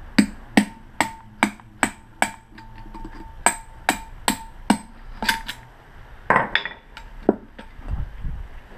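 Hammer blows on a metal rod driving the copper windings out through the slots of a large electric-motor stator: a dozen or so steady strikes, about two and a half a second, each with a short metallic ring. About five seconds in the rhythm stops and a few scattered knocks and low thuds follow.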